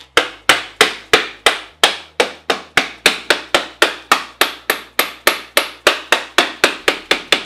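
Rubber-faced mallet lightly tapping a plastic extrusion onto the edge of a windshield panel, seating it. The taps come in a steady, even run of sharp knocks, about three and a half a second.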